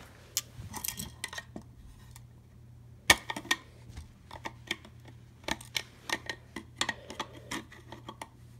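Pliers gripping and working a metal bracket on the sheet-metal case of a Tyco train controller, giving irregular sharp metallic clicks and scrapes as the bracket is pried loose. The loudest click comes about three seconds in.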